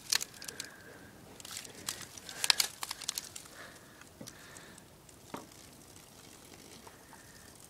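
Scattered faint crackles and sharp clicks from an aluminium can of Diet Coke Lime held upside down and being emptied. There is a cluster of clicks about two and a half seconds in and a single click a little after five seconds.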